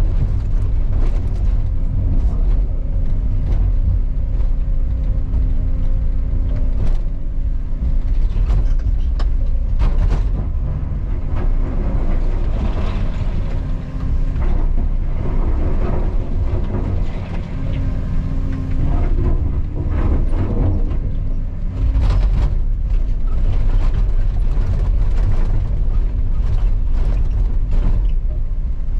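Caterpillar 335 excavator running steadily under work, with irregular knocks and scrapes of rock against the bucket.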